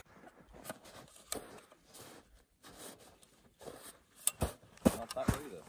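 Boots crunching and stomping on snow: a few scattered crunches at first, coming thicker and louder about four seconds in.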